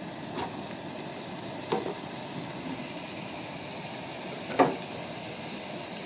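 Cooking on a gas camp stove: a steady hiss from the burner and the simmering pot, with a few sharp knocks of cookware, the loudest about four and a half seconds in.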